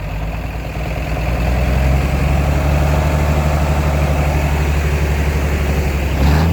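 Cummins diesel engine of a 1982 Marmon truck idling steadily with a low, even rumble, running again after sitting for many years. A short bump sounds near the end.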